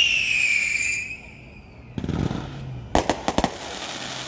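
Fireworks: a whistling rocket's loud whistle, falling in pitch, then a short crackle and, about three seconds in, a quick run of four or five sharp firecracker bangs.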